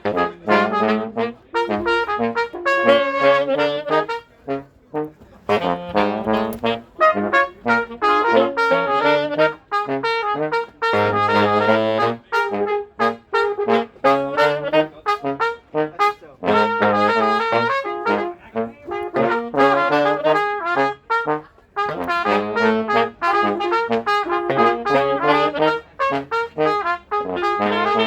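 Small brass band jamming: trumpets and trombones play melody lines over a low bass line, with notes changing continuously.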